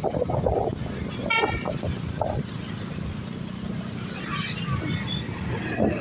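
A vehicle horn toots once, briefly, about one and a half seconds in, over the steady rumble of road traffic.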